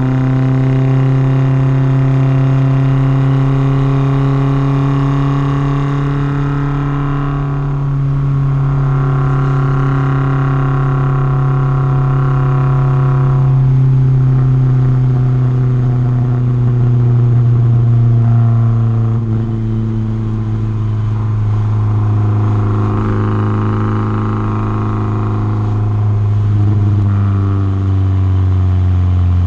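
Porsche 944's four-cylinder engine running steadily at mid revs, its pitch sinking slowly as the revs ease off, then dropping further near the end.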